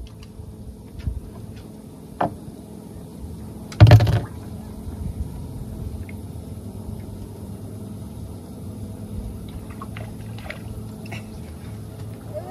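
Water lapping and sloshing against a small metal boat's hull, with a loud sudden knock about four seconds in and a few lighter clicks and taps.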